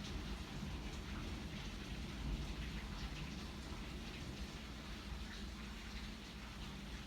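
Rain falling steadily, with scattered sharp taps of drops hitting a surface.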